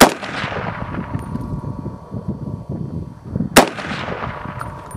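Two shots from a Century Arms R1A1 .308 semi-automatic rifle, about three and a half seconds apart, each followed by a long rolling echo.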